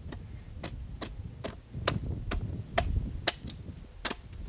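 Side axe chopping down a wooden trug handle blank held upright against a chopping block: a quick, even run of sharp chops, about two or three a second.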